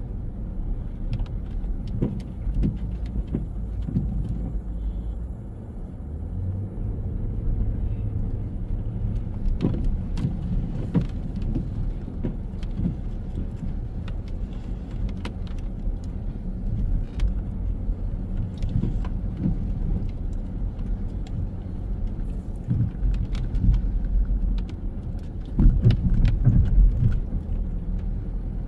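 City street traffic: a steady low rumble of cars, with scattered small clicks and taps over it. The rumble swells near the end.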